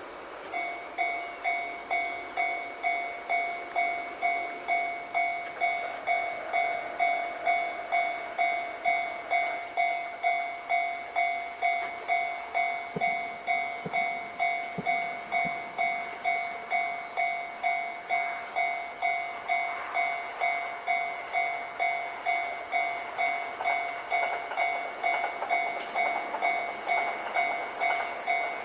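Japanese railway level-crossing warning bell starts about half a second in and rings steadily at about two strikes a second, each strike fading away. It signals an oncoming train, whose rumble builds beneath the bell in the second half.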